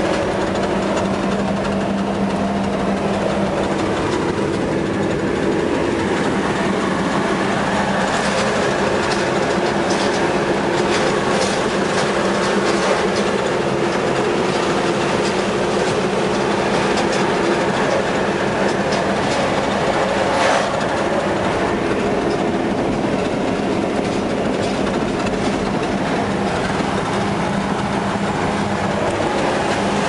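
Concrete mixer truck's diesel engine and drivetrain, a steady drone heard from inside the cab while driving, with rattling and clicking from the cab from about eight seconds in.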